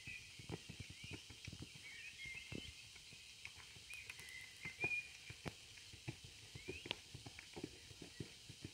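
Soft, irregular thuds of a horse's hooves cantering on sand footing, a few beats a second, while small birds chirp now and then.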